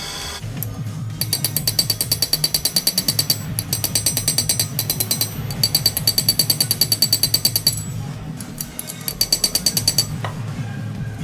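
Small hammer tapping rapidly on metal over a steel anvil, peening the 2 mm pins through the razor's handle. The taps come in quick runs of about five or six a second with a bright metallic ring, broken by short pauses.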